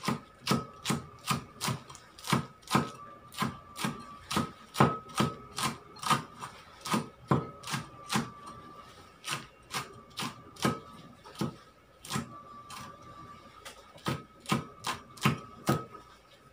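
Cleaver chopping a green chili into thin slices on a wooden chopping board: quick, regular knocks of the blade on the wood, about two to three a second, with a short pause a little past the middle.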